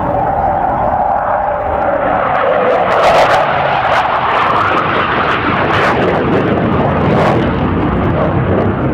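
Hawker Hunter jet's Rolls-Royce Avon turbojet running loud in a display pass: a whistling tone that drops in pitch over the first couple of seconds, then a broad rushing noise with a few short crackles.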